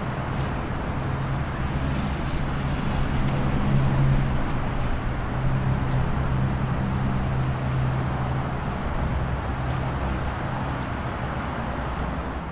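Steady rushing roar of the Rheinfall waterfall, with a low engine hum running underneath.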